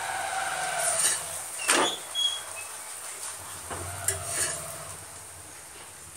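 Metal spatula scraping and clinking against a flat iron griddle (tawa) as a paratha is pressed and turned in oil, a few short strokes with the strongest one a little under two seconds in, over a light sizzle.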